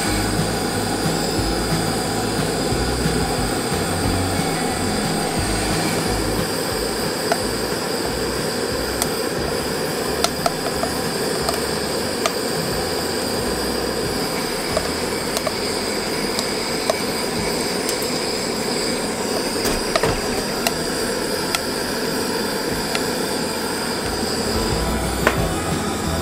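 Coffee beans cracking inside a ceramic hand roaster: scattered sharp pops, more frequent from about a third of the way in, over the steady hiss of a propane gas burner. The beans are going through first crack.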